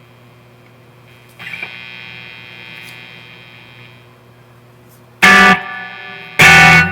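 Electric guitar through a cranked Marshall DSL40C valve amp and a noise gate pedal in its soft mode, with a steady amp hum and buzz underneath. A chord rings out about a second and a half in and fades, then two very loud short chord stabs come near the end, each ringing on briefly before the hum returns.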